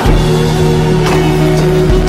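Loud electronic background music, with held notes over a low bass line.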